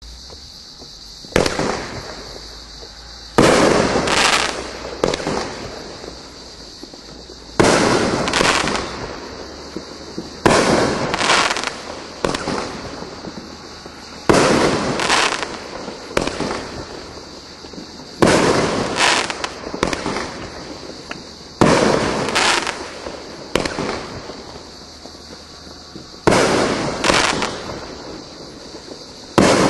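Consumer firework cake firing single shots into the air, about nine in all, a few seconds apart. Each is a sudden bang followed by further reports as the shell bursts, dying away over a second or two.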